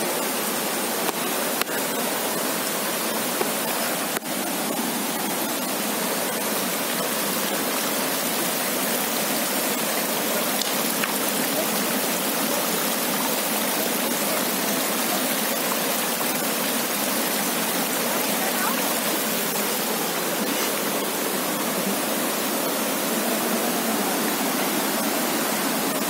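Muddy monsoon floodwater rushing over sandstone rocks, a steady, even rush of water that does not let up. A couple of small knocks sound about two and four seconds in.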